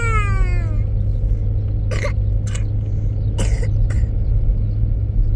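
Steady low rumble of a car driving, heard inside the cabin. A long cry that rises and falls in pitch fades out in the first second, and a few short sharp sounds come about two and three and a half seconds in.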